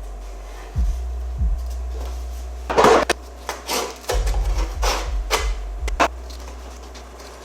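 A series of short scraping and rustling strokes from a cardboard template being handled and marked against sheet metal, loudest about three seconds in, over a steady low hum.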